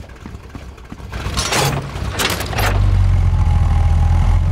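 Cartoon sound effects: a couple of quick whooshing, clanking noises, then from about two and a half seconds in a monster truck's engine starting and running low and steady, the engine working again with its piston refitted.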